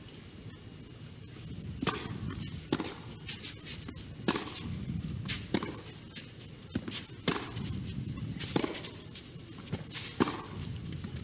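Tennis ball struck back and forth by rackets in a baseline rally: a series of sharp hits, about seven, roughly one every second to second and a half.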